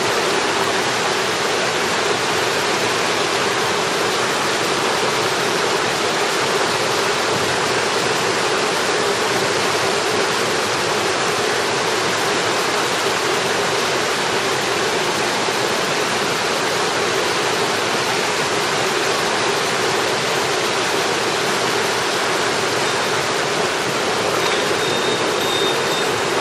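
Small rocky mountain stream rushing steadily over stones and riffles close by: a loud, continuous, even water noise.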